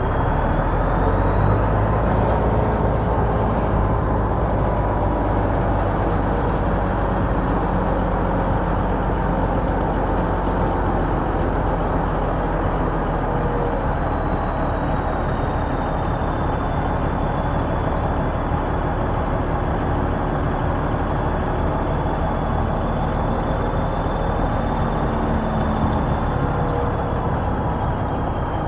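Heavy diesel earthmoving machinery running steadily, with a thin high whine that rises over the first few seconds and then slowly sinks.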